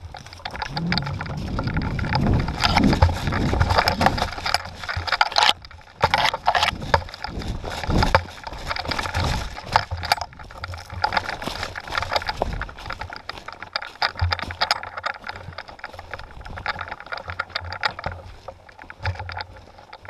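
Someone moving fast through dry leaf litter and underbrush, with footsteps crunching, twigs and branches brushing past, and knocks and rattles of the camera mounted on an airsoft gun's barrel. It is loudest in the first few seconds, with a low rumble of the mic being jostled.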